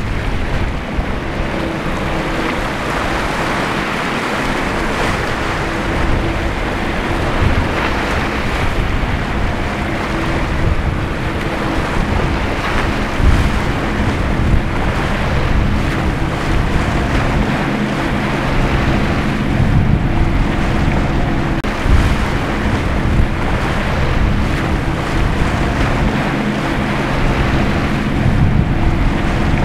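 Wind buffeting the microphone over waves breaking at an inlet, with a steady hum from a boat's engine underneath.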